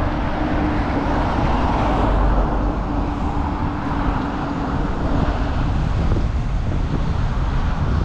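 Steady city road traffic going by, with a low engine hum over the first few seconds. Wind buffets the microphone.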